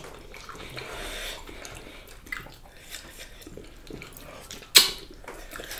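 Close-miked eating sounds as rice and spicy beef stew are eaten by hand: quiet chewing and small wet mouth clicks, with one sharp, louder smack near the end.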